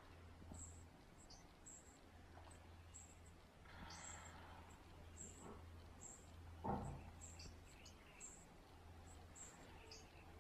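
Near silence: faint outdoor ambience with short, high chirps repeating every second or so, and one brief low thud about two-thirds of the way in.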